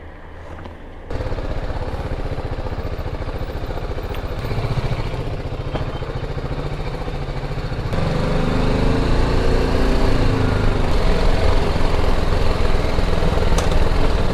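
BMW G310GS's single-cylinder engine running as the motorcycle rides slowly along. The sound starts suddenly about a second in and gets louder about eight seconds in, its pitch rising and falling with the throttle.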